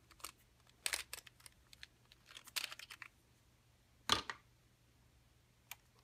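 Plastic clicks and handling noises of the Drift Ghost S action camera's rear battery hatch being pulled off and worked, with the sharpest click just after four seconds in.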